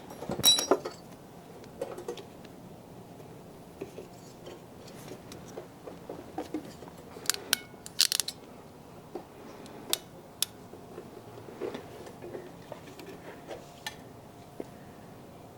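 Sporadic metallic clicks, snips and clinks of small hand tools working on a wire end as it is cut and fitted with a new bullet connector; one ringing clink about half a second in and a quick cluster of clicks around the middle.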